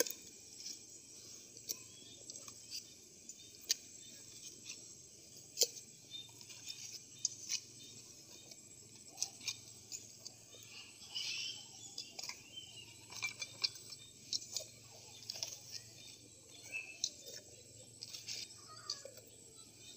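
Armoured suckermouth catfish being put into a steel stockpot of water: scattered light knocks, clicks and small splashes as the bony fish hit the pot and each other, over a steady faint high-pitched hum.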